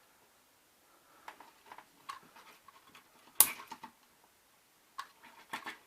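Plastic K'NEX figure's clicking joints being moved and posed: scattered sharp plastic clicks, the loudest about three and a half seconds in, with a quick run of clicks near the end.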